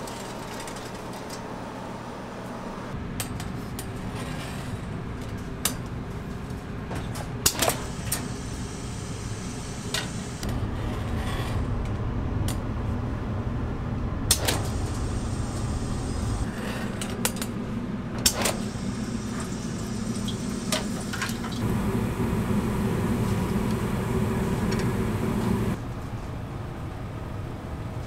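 Doughnut-kitchen work: a steady machine hum from the proofing cabinet and electric doughnut fryer, broken by several sharp metallic clinks and knocks as metal proofing trays and the fryer's wire rack are handled. The hum grows louder partway through and drops suddenly near the end.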